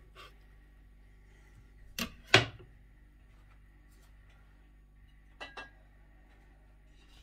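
Kitchen utensils knocking against cookware: two sharp clacks about two seconds in, the second the louder, then two lighter clicks a few seconds later, over a faint steady hum.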